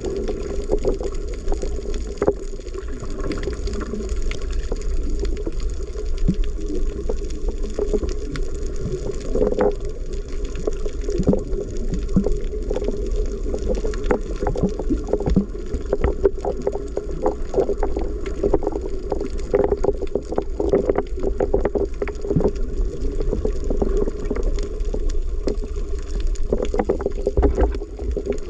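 Underwater sound picked up by an action camera in its waterproof housing: a steady, muffled rumble of water with many irregular clicks and crackles.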